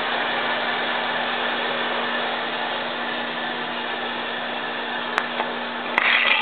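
Shop machinery running steadily: a motor hum with a constant airy rush, easing slightly in level. A light click about five seconds in and a short handling rustle near the end.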